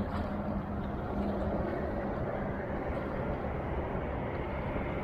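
Steady noise of road traffic on a large road bridge spanning the river.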